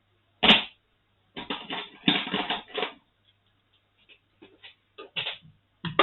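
Clicks and knocks of small hand tools working against a hard plastic instrument case: one sharp knock about half a second in, a clattering run of clicks around two seconds in, then scattered light clicks.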